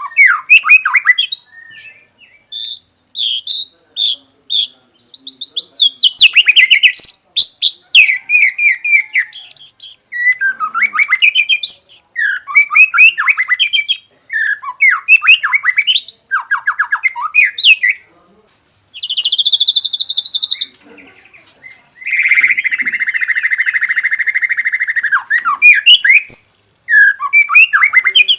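White-rumped shama singing loudly in fast, varied phrases of whistles and chirps, a song filled with mimicked calls of other birds. About two-thirds of the way through come a short buzzy note and then a longer buzzy trill held for about three seconds.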